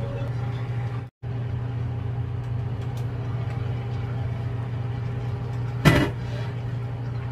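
A steady low hum, cut off briefly about a second in; about six seconds in, a glass pot lid is set back down on a metal pan of soup with a single clank.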